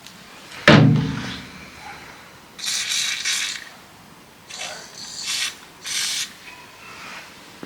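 Hand tool work on a tractor topper's gearbox: a sharp metal clank that rings briefly about a second in, then three short raspy, clicking bursts of metal working against metal.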